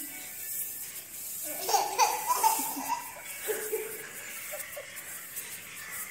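A toddler laughing in short high-pitched bursts, starting about a second and a half in and again near the middle.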